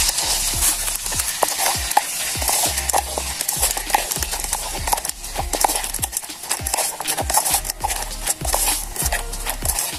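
Metal spoon stirring and clinking in a small metal camping pot of bird stew, with quick irregular clicks throughout over a steady hiss.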